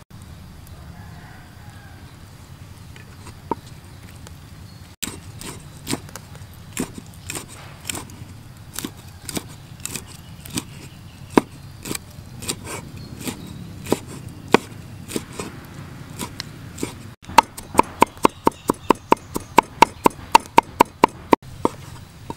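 A cleaver chopping on a thick wooden chopping board. About five seconds in, single knocks come about twice a second; near the end there is a fast, even run of about six chops a second.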